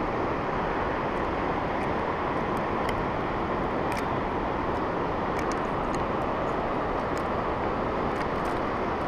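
A steady, even rushing noise, with a few faint short clicks scattered through it.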